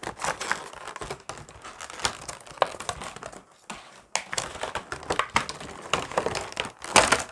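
Clear plastic packaging tray of a trading card box crinkling and clicking as it is handled and pulled apart, in irregular crackles that are loudest near the end.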